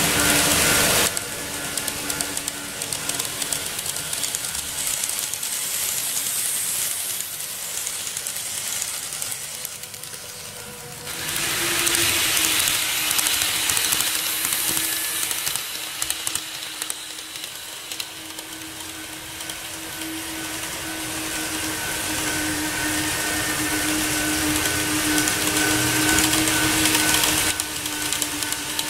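KATO N-scale model trains running on the track: the electric motors hum steadily while the wheels rattle and hiss along the rails. The noise swells as a train passes close about 11 seconds in, fades, then builds again as the next train approaches near the end.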